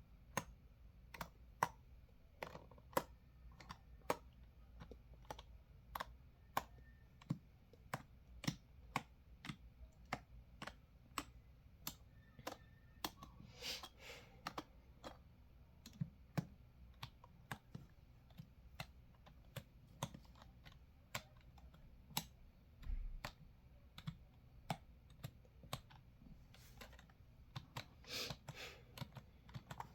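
Computer keyboard being typed on at an unhurried, uneven pace, single key clicks about two a second, with two brief faster flurries of keystrokes around the middle and near the end.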